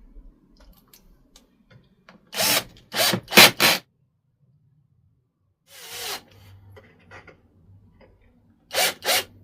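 Power drill/driver run in short trigger bursts, driving screws into wood: four quick bursts about two seconds in, one more after a pause, and two near the end.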